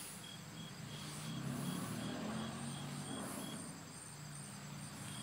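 Outdoor ambience of insects chirping in a steady pulsing rhythm, over a low hum that swells through the middle and fades.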